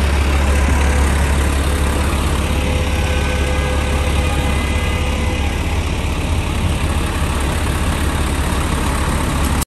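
City bus diesel engine idling close by, a steady low rumble, with street traffic around it.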